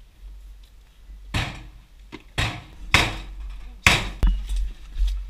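Four heavy blows, irregularly spaced between about one and four seconds in: a door being forced open during a police breach.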